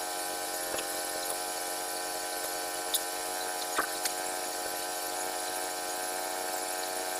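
Small gas engine of a portable bandsaw sawmill running steadily at constant speed, with a few faint clicks.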